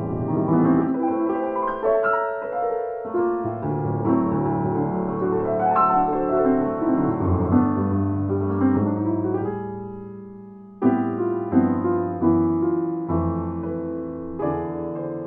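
Solo piano playing an improvised romantic piece in full, repeated chord changes. About ten seconds in a chord is left to die away, then a loud new chord is struck and the playing goes on.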